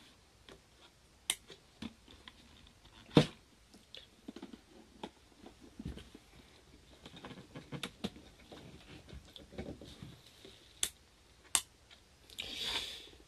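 K-TOR Pocket Socket hand-crank generator being cranked: faint, irregular clicking and rattling from the crank and its gearing, with a few sharper clicks and a short rustle near the end.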